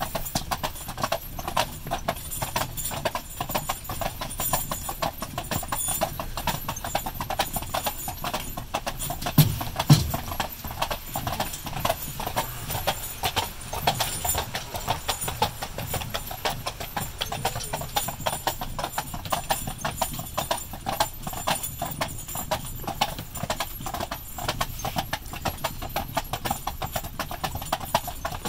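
A pair of carriage horses walking on a paved road, their hooves clip-clopping in a steady, even rhythm. Two louder thumps come close together about ten seconds in.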